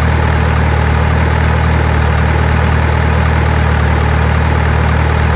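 Steady, unchanging low engine drone, like an engine at idle.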